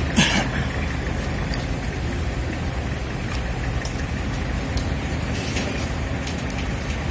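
Steady low rumble of a gas burner heating a large cast-iron pancake pan, mixed with street traffic noise. There is one short, sharp clatter just after the start.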